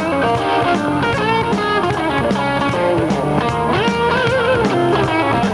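A Tejano band playing live, an instrumental passage with a lead melody line that bends and wavers in pitch over bass and drums.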